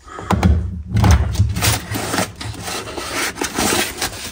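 Loud, close rubbing and scraping with scattered knocks and clicks, the sound of wooden furniture or objects being handled.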